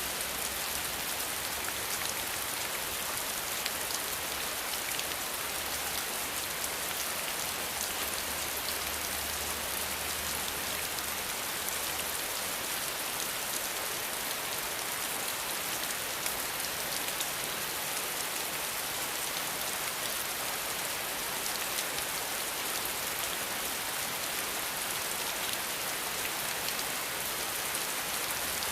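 Steady, dense rainfall, with many fine drops pattering on surfaces. A faint low hum underneath fades out about twelve seconds in.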